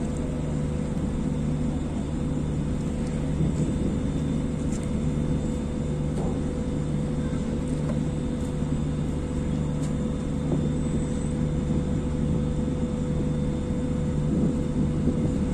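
Heavy machinery running with a steady low drone and a constant hum.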